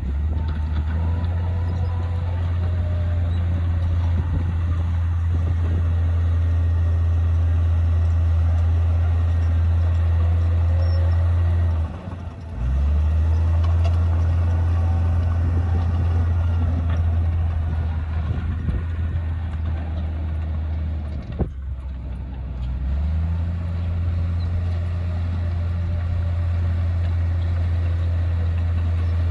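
Komatsu D58P bulldozer's diesel engine running hard with a steady low drone, dipping briefly about twelve seconds in and again around twenty-one seconds, where a single sharp knock is heard.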